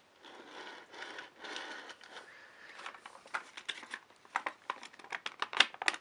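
Model-train packaging being handled: a soft rustling and crinkling, then a run of sharp clicks and taps, the loudest a little before the end.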